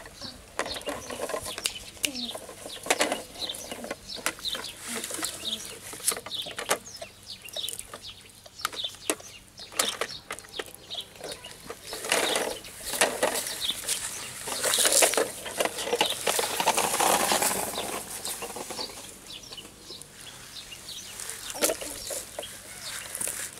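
Plastic toy trucks being handled: many sharp clicks and knocks of plastic parts, with louder rustling bursts in the middle.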